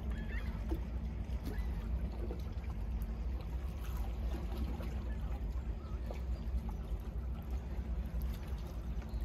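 Steady low rumble with faint lapping of calm lake water against shoreline rock.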